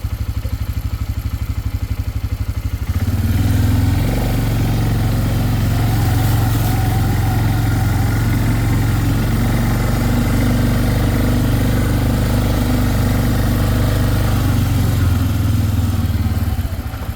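Four-wheeler (ATV) engine idling with a low pulse, then engine speed rising about three seconds in and holding steady, easing back down near the end.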